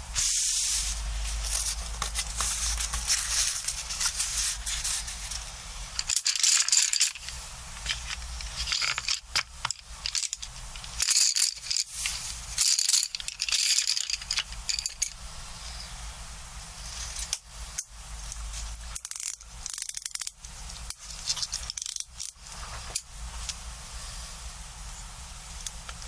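Hands rustling and smoothing a paper towel, then wooden coloured pencils clattering and clicking against each other as they are handled and set down. The rustling is densest in the first few seconds, and the clicks come in scattered clusters after that.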